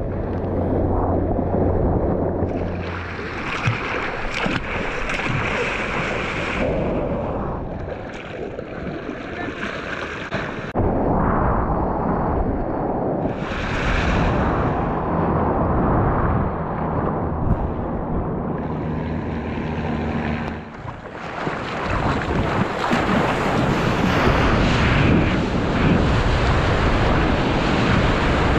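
Sea water rushing and sloshing close around a helmet-mounted GoPro at water level, with wind buffeting the microphone. The water rush grows louder and fuller in the last third as breaking whitewater comes near.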